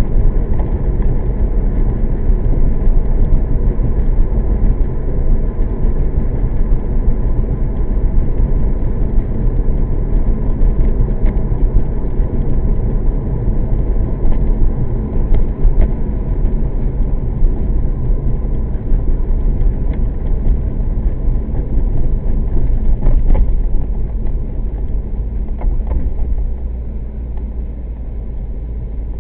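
1998 Corvette C5's LS1 V8 running while the car is driven, together with road noise. It is a steady low rumble that gets quieter near the end.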